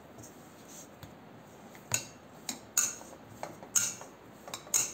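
Makki (corn flour) dough being kneaded by hand in a stainless steel pot: the hand knocks against the metal pot in sharp, short clinks. They begin about two seconds in and come in an uneven string of several a second.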